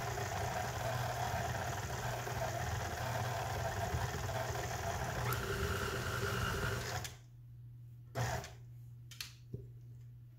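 Electric tilt-head stand mixer running steadily, its flat beater churning thick oatmeal raisin cookie dough in a steel bowl, then switched off suddenly about seven seconds in. A few light knocks follow.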